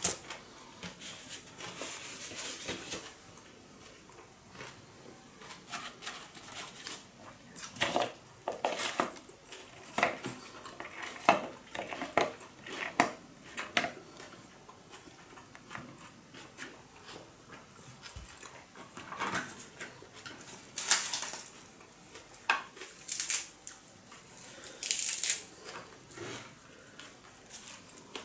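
Scattered clinks, taps and short rustles of dishes and food being handled at a table while fresh spring rolls are assembled, with several louder rustles in the second half.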